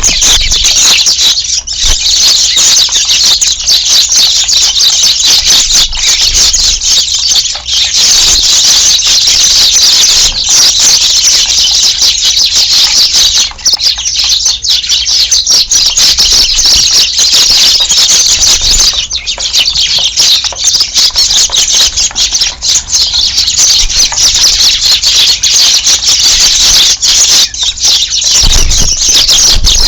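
A large flock of Eurasian tree sparrows chirping all at once: a loud, dense, unbroken chorus of overlapping high chirps.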